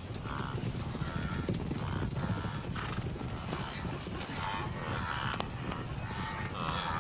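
A zebra being brought down by lions, giving repeated short, pitched distress calls over a steady low rumble.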